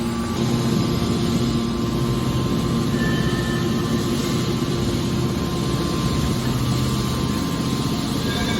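Hydraulic scrap metal baler running: a steady machine hum with a constant low drone and no breaks.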